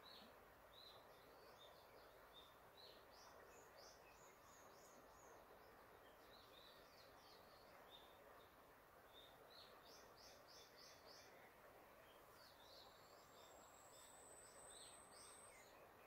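Faint songbirds chirping and singing in a forest, with a quick run of notes about two-thirds through and one long, thin rising whistle near the end, over the steady rush of a river.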